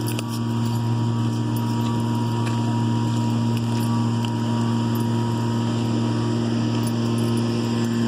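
Steady low hum of idling vehicle engines, holding one pitch throughout.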